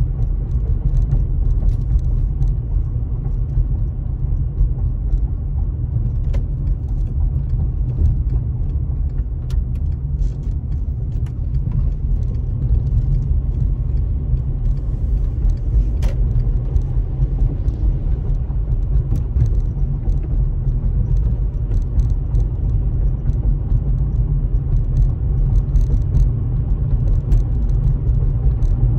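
A car driving along at town speed, heard from inside the cabin: a steady low rumble of engine and road noise, with faint scattered ticks.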